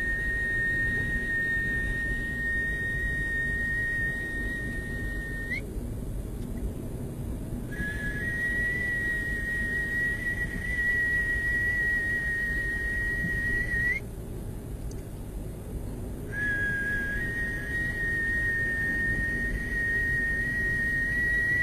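A steady, high whistle tone held for about six seconds at a time. Each note ends in a quick upward flick, and pauses of about two seconds fall between them, three notes in all.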